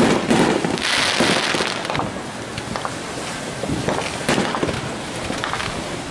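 Aerial fireworks shells bursting: sharp booms at the start and again from about four seconds in, with a rush of hissing noise about a second in.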